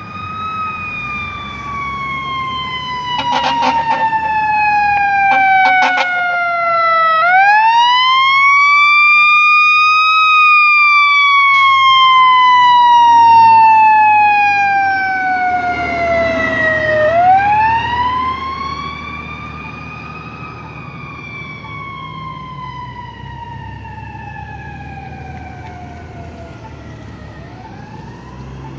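Fire engine siren wailing: each cycle rises quickly, then slides slowly down in pitch, repeating about every ten seconds. Two clusters of short horn blasts come about 3 and 5 seconds in. The truck's engine is heard as it passes, loudest mid-way, and the siren then fades as it drives off.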